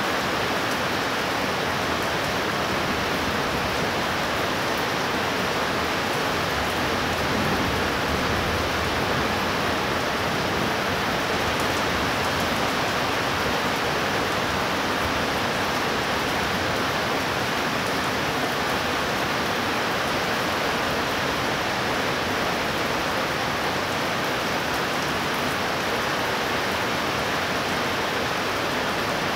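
Heavy rain falling in a steady downpour, an even hiss that does not rise or fall.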